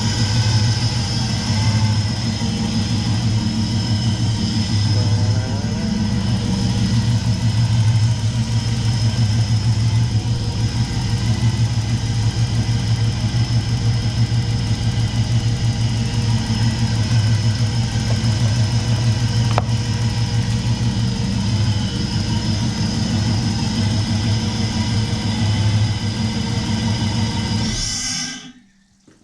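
VP Commodore's 5-litre V8 idling steadily with its newly fitted Gilmer belt drive turning; the engine is switched off shortly before the end, and the sound cuts out.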